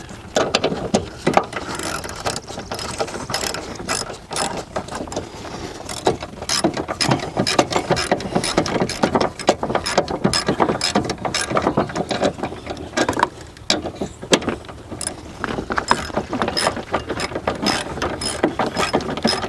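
Hand ratchet clicking rapidly and continuously as a long battery hold-down bolt is run up and tightened, with a brief lull about two-thirds of the way through.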